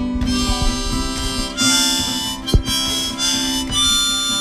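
Harmonica playing held notes as an instrumental break in the song, with a brief knock a little past halfway.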